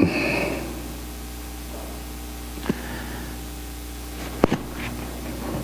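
Steady electrical hum and hiss from a microphone and sound system, with two short clicks, one about midway and one near the end.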